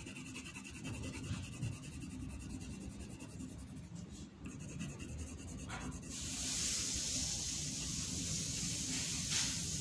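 Red coloured pencil scratching back and forth on paper as an area is coloured in; the scratching gets louder and hissier about six seconds in.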